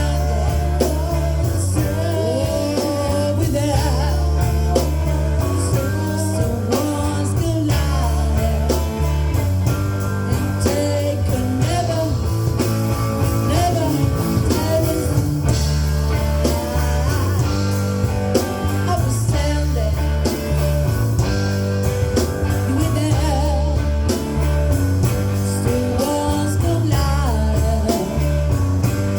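Live rock band playing: drum kit, bass guitar and electric guitar, with singing over them.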